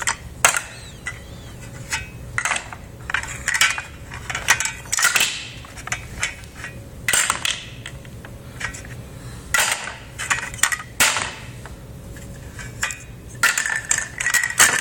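Play-kitchen pots, pans and utensils being handled, with scattered irregular knocks, clinks and clatters.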